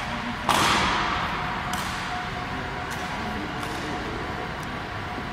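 A sharp clack about half a second in that rings out in a long echo, then a few lighter clicks: honor guards' drill strikes on the stone floor of a large hall.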